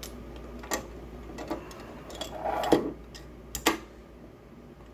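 A handful of light, irregular clicks and taps from metal model-kit parts shifting against each other in the fingers while being held together for glue to set; the loudest come a little past the middle.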